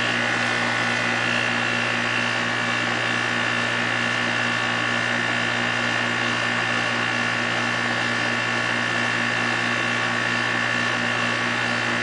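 2.5-ton Nordyne air-conditioning condensing unit running: a steady machine hum from its compressor and condenser fan, with several even tones over it.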